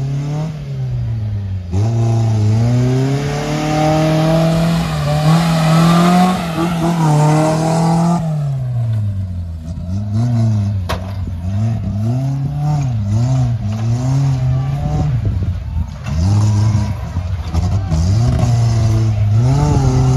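Off-road 4x4 pickup's engine revving hard as it climbs dirt mounds: held at high revs for about six seconds, then rising and falling in repeated throttle blips.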